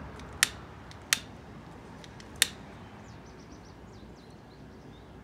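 Three sharp clicks of a butane grill lighter's trigger being pressed again and again, about half a second, one second and two and a half seconds in. Faint bird chirps follow in the background.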